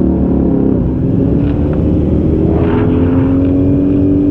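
Motorcycle engine running under a low rumble. Its pitch drops about a second in, then climbs slowly as the bike accelerates.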